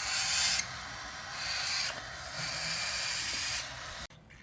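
Raspy hissing from hand-fed cockatiel chicks, in several stretches, cutting off sharply near the end.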